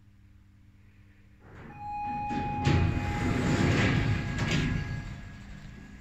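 Lift arrival chime, a steady electronic tone about a second and a half in, followed by the car's automatic doors sliding open with a rumbling rush that fades over a couple of seconds.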